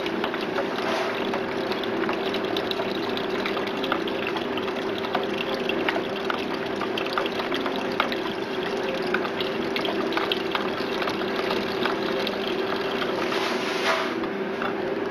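Sodium hypochlorite solution pouring in a thin, steady stream from a glass beaker into a plastic bucket of effluent, over a steady machine hum.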